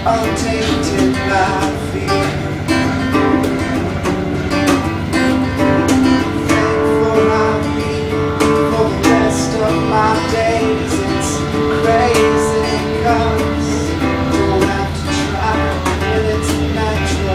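Acoustic guitar strummed and picked in a song, with a man singing along.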